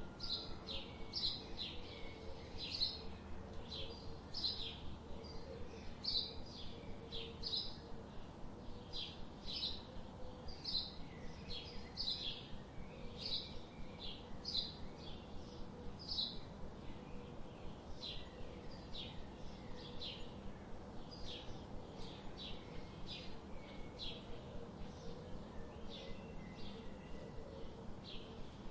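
Songbirds chirping: short, high chirps repeating about two to three times a second without a break, over a faint steady background hum.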